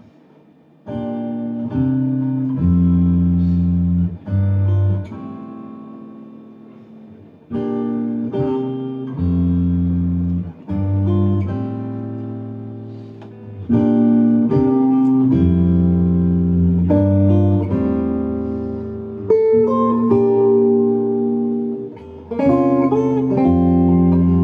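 Acoustic guitar and electric bass playing a slow intro of sustained chords, starting about a second in; each chord is let ring and fade before the next, with short breaks between phrases.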